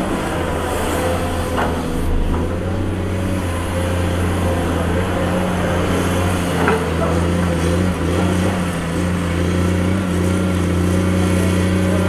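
Komatsu PC210 excavator's diesel engine running steadily, with a couple of faint knocks about two seconds in and again near seven seconds.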